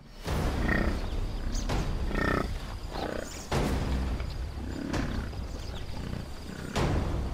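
Cape buffalo grunting and lowing, several short calls a second or two apart over a low steady rumble.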